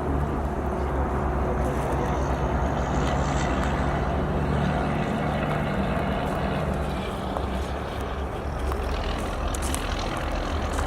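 An engine running steadily, with a constant low hum.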